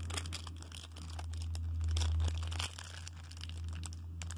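Thin clear plastic wrapping crinkling as it is handled, a run of small scattered crackles over a low steady hum.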